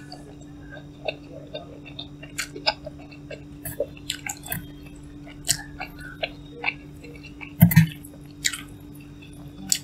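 Close-up chewing and mouth smacks of someone eating instant cup noodles: irregular wet clicks with a louder double knock about three-quarters of the way through, over a steady low hum.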